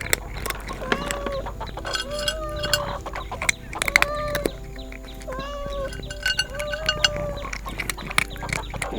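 Short arched animal calls repeated about once a second, with scattered sharp clicks over a steady low hum.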